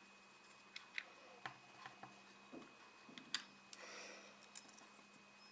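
Faint handling noises: a few scattered small clicks and taps and a brief soft rustle, as paper is glued onto a homemade fidget spinner.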